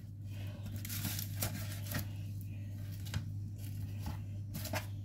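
Faint rustling and light taps of crisp baked börek rolls being lifted off parchment paper on a metal baking tray, a few soft clicks scattered through, over a steady low hum.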